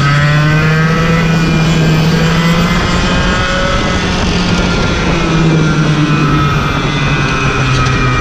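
Racing kart engine at high revs, heard from on board with a second kart running just ahead. The engine note dips about three seconds in, climbs again, and dips once more near the end as the throttle changes through the corners.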